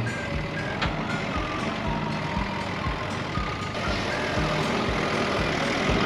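Deutz-Fahr tractor's diesel engine running steadily as its front-end loader lifts a round bale, with background music over it.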